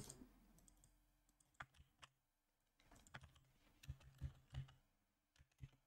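Faint, scattered keystrokes on a computer keyboard, a few separate taps spread out rather than steady typing.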